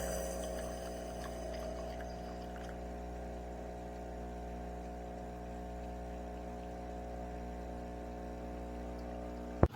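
Espresso machine's pump running with a steady buzzing hum while it brews. A single sharp click comes just before the end.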